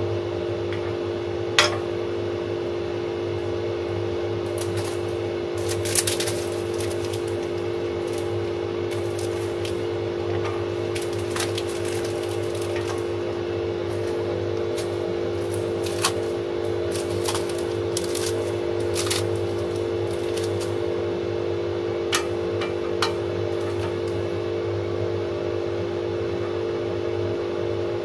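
Solid wooden puzzle pieces clicking and knocking against each other and the saw table as they are handled and fitted together, a few sharp clacks standing out about one and a half and six seconds in. Under them runs a steady, unchanging motor hum.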